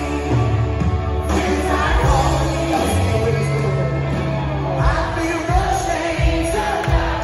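Live country band playing with lead and harmony vocals, guitars and bass, heard from the crowd in a large hall. A steady kick-drum beat comes in about five seconds in.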